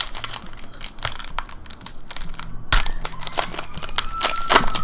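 Crinkling and tearing of a trading-card pack's foil wrapper, with a rapid run of crackles that grows busier and louder in the second half.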